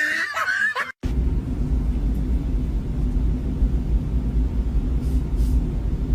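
A high, wavering voice-like call in the first second, then after a sudden cut a steady low rumble.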